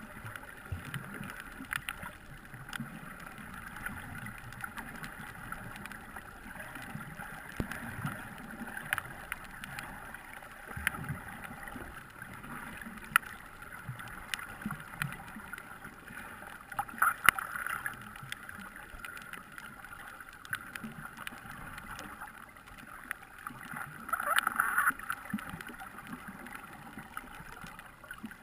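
Muffled underwater ambience heard by a camera below the surface: a steady wash of moving water with irregular low rumbles and many scattered short clicks. Two louder rushes of noise come about halfway through and near the end.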